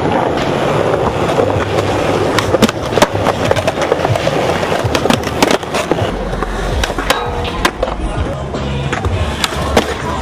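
Skateboard wheels rolling on concrete, with repeated sharp clacks of boards popping and landing.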